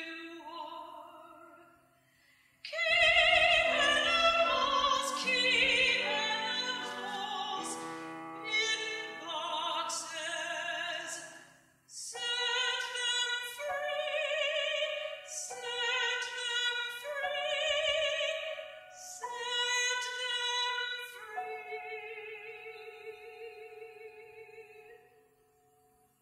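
Classical soprano singing with a wide vibrato over piano, in phrases broken by short pauses, from a slightly wobbly old cassette recording. The singing fades out near the end.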